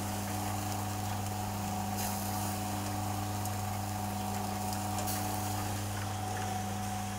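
Steady electric hum of a charcoal grill's rotisserie motor turning the skewers, over a faint sizzle of kebabs cooking on the coals.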